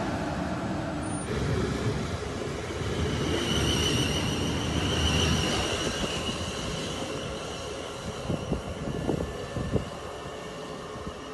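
Two coupled Class 450 Desiro electric multiple units pulling away from a station platform, with a high electric whine from the traction motors as they accelerate. A few sharp clicks from the wheels on the track come near the end as the train draws away.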